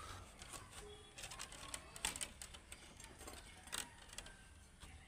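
Bamboo strips being handled and woven into a basket: faint, irregular clicks and taps.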